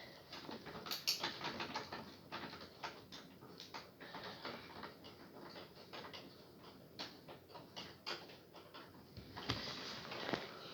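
Screwdriver turning a screw to fasten a CPU heatsink, giving irregular small clicks and scrapes of metal on metal as the screw starts to thread.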